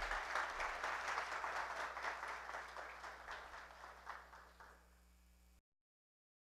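Audience applause, many hands clapping, tapering off and then cut off abruptly near the end.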